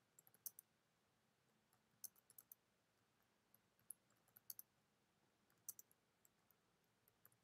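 Faint, irregular keystrokes on a computer keyboard as a sentence is typed, the clicks coming singly and in short runs.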